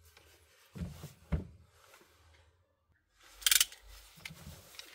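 Small taps and knocks of phone parts and tools being handled during a smartphone teardown, two about a second in, then a brief sharp scrape about three and a half seconds in, the loudest sound, followed by lighter clicks.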